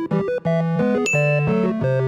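Bouncy keyboard and synthesizer music with short piano-like notes over a bass line. About halfway through, a click and a brief high steady tone join in.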